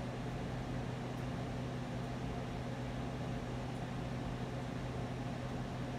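Spirit box radio scanner putting out steady static hiss with a low, constant hum underneath, and no voice fragments coming through.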